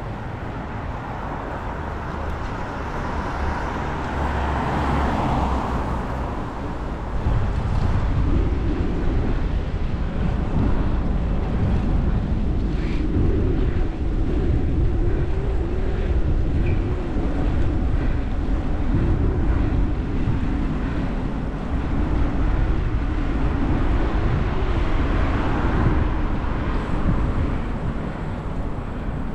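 Wind buffeting the microphone of a bicycle-mounted camera, over steady road noise from riding along a wet street. The buffeting grows louder from about eight seconds in, and a swell of traffic noise rises and fades around five seconds in.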